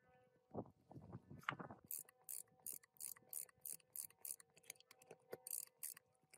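Socket ratchet wrench clicking as it turns a bolt into a small two-stroke engine's crankcase: sharp pawl clicks repeating about three times a second, with a few knocks of handling before the clicking starts.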